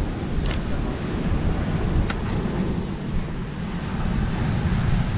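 Wind buffeting the microphone in a low, gusting rumble, with sea surf hissing underneath.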